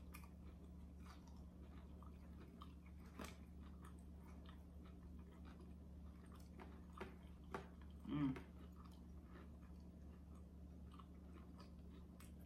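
Faint chewing and scattered small clicks and taps as fried shrimp are handled and dipped in sauce, over a steady low electrical hum. A brief murmur of a voice comes about eight seconds in.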